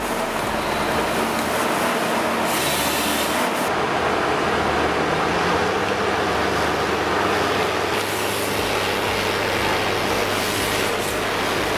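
Forestry harvester's diesel engine running steadily under load, with a loud, even mechanical rush over a low engine drone.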